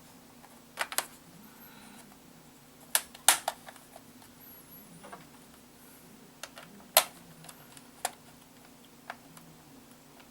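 A scattered run of sharp plastic clicks and taps from the laptop's memory compartment cover being handled and fitted on the underside of the case, the loudest about three seconds in and again near seven seconds, over a faint steady hum.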